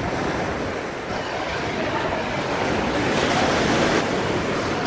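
Hurricane wind blowing hard in gusts, a dense rushing noise that swells about three seconds in, with wind buffeting the microphone.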